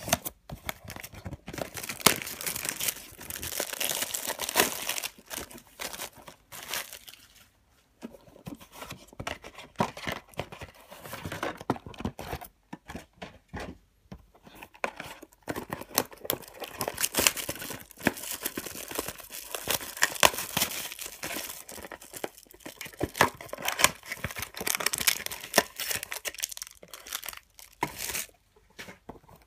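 Plastic wrapping being torn and crinkled by hand as a sealed trading-card box is opened and its wrapped packs are handled: irregular crackling and ripping in stretches, with a few short pauses.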